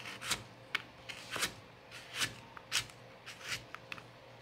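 Chef's knife slicing through a raw carrot and knocking on a plastic chopping board: a string of short, crisp cuts at uneven spacing, about two a second.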